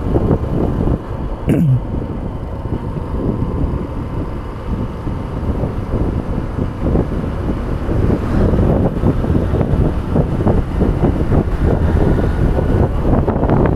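Wind rushing over the microphone of a Hero Hunk motorcycle being ridden at speed, mixed with the bike's engine and road noise.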